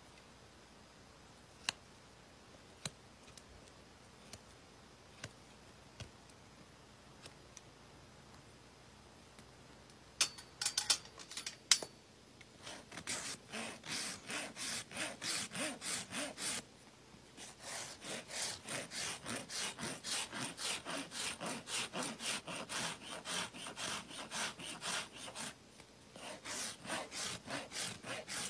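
A hoof rasp filed across a horse's hoof in quick, rhythmic scraping strokes, about three a second, in runs of several seconds broken by short pauses. The first ten seconds hold only a few faint clicks, followed by some sharper taps before the rasping begins.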